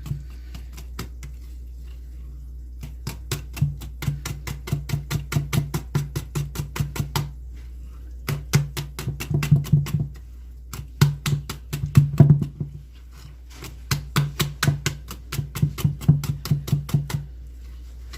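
Hand whisk beating cake batter in a bowl, tapping against its sides about five times a second, in runs of a few seconds with short pauses between.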